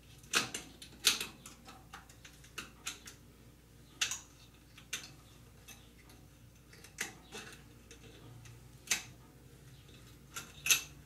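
Irregular sharp metallic clicks and light scrapes of a tool working a retaining clip out of an FOA coilover shock's end cap, about a dozen clicks at uneven intervals, the loudest about a second in and near the end.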